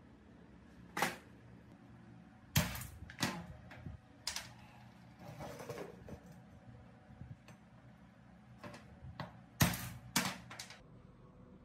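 Hand tools and small engine parts being handled on a workbench: a string of sharp knocks and clinks, loudest about two and a half seconds in and again near the end, with a short scrape in between.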